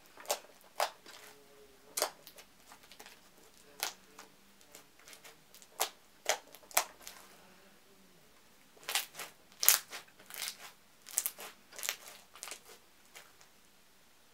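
Thick slime with foam beads being squished and stretched by hand, giving irregular sharp pops and crackles that come thickest in the second half.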